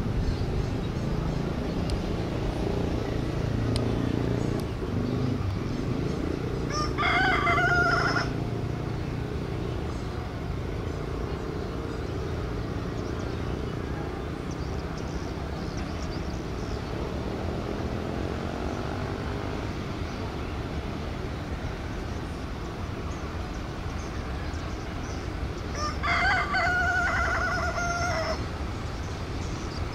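A rooster crows twice, each crow lasting about two seconds, with the two crows roughly twenty seconds apart. Underneath runs the steady low rumble of an approaching diesel-hauled passenger train.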